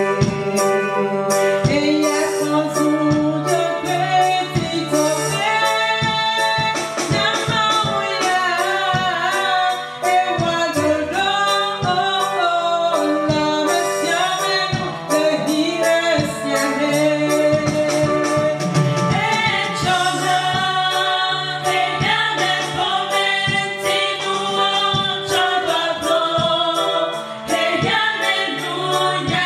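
Gospel worship song: a woman sings lead into a microphone, with other women's voices in harmony, over electronic keyboard accompaniment with a steady beat.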